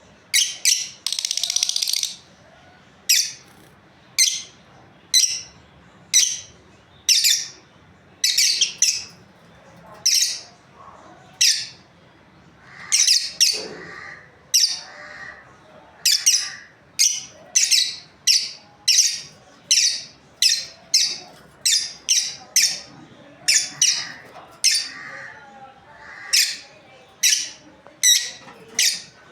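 Lovebirds calling: a long series of short, high-pitched chirps, about one or two a second, with one longer call near the start.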